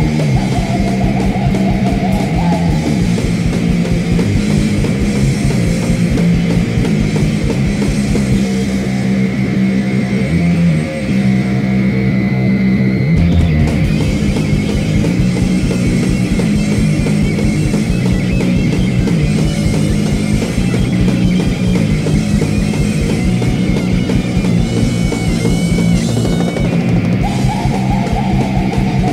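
Punk band playing live: loud distorted electric guitar over fast, driving drums.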